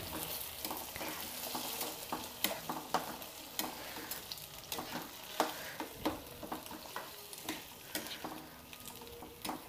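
A spatula stirring and scraping thick mashed brinjal curry around a frying pan, with irregular scrapes and light taps against the pan over a soft frying sizzle.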